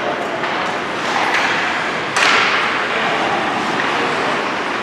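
A single sharp crack of a hockey puck impact about two seconds in, echoing through the rink, over steady arena noise.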